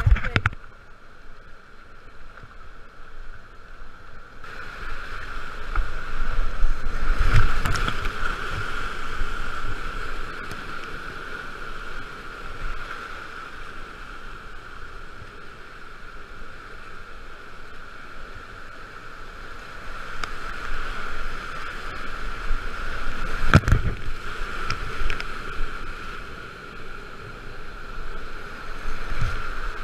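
Whitewater rapids rushing and splashing around a kayak, swelling louder twice as the boat drops through the waves. A few sharp knocks cut through, the loudest about two-thirds of the way through.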